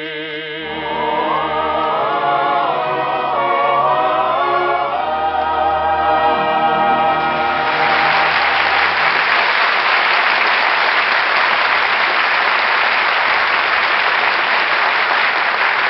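Singers with choir and orchestra finish a show tune, holding the last notes with vibrato. About eight seconds in, the music gives way to studio-audience applause, which carries on steadily to the end.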